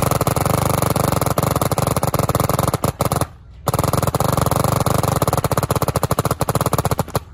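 2004 Angel electropneumatic paintball marker speed-shot on semi-auto: two long, very rapid strings of shots with a short break about three seconds in.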